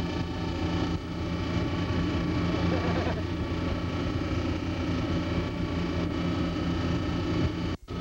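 Steady low engine drone with a noisy rush under it. It cuts out for a moment near the end.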